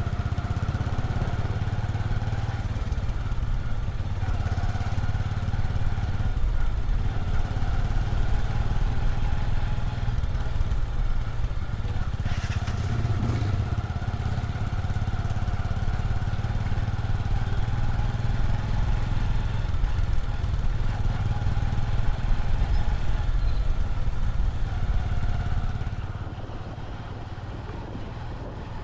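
Motorcycle engine running steadily while riding, with its drone wavering a little with the throttle, over road and wind noise. It drops somewhat in level near the end.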